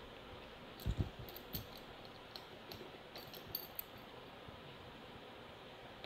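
A padlock being unboxed by hand: a couple of soft thumps about a second in, then a run of light clicks and taps from the packaging and lock that stops about two-thirds of the way through.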